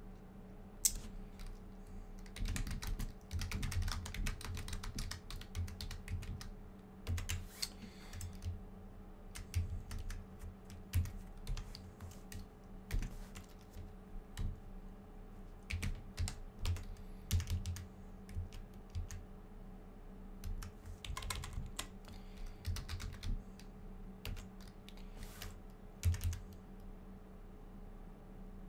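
Typing on a computer keyboard: irregular keystrokes, sometimes in quick runs and sometimes single, over a steady low hum.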